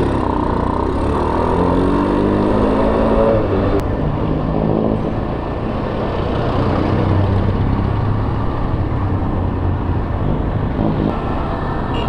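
Rusi Mojo 110 mini bike's engine pulling away, rising in pitch as it accelerates during the first few seconds and then running steadily, over a heavy rush of wind and road noise from riding in traffic.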